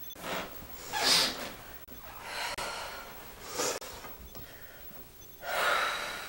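A woman breathing hard in distress: a series of about five sharp, ragged gasping breaths, the last the loudest.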